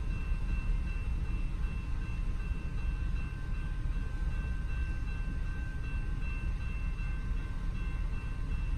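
Tail end of a long freight train rolling through a level crossing, a steady low rumble heard from inside a stopped car. The crossing's warning bell keeps ringing as a faint steady high tone.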